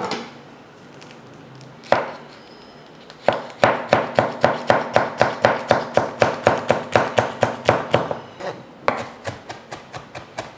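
Chef's knife finely chopping green chilies on a plastic cutting board: a couple of single knocks, then a fast, even run of knife strikes on the board, about four or five a second, with a short pause near the end before the chopping picks up again.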